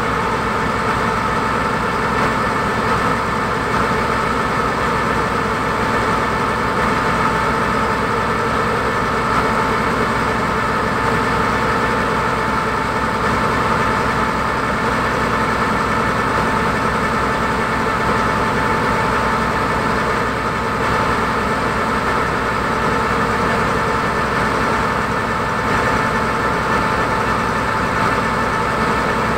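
Passenger ferry launch's engine running steadily, an even drone heard from on board.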